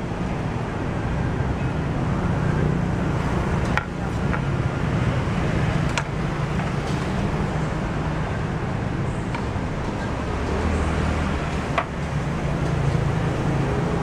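Steady roadside traffic rumble from passing vehicles, with a few sharp knocks scattered through it.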